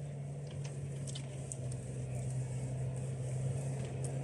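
A steady low hum, like a running engine or motor, with a few faint ticks.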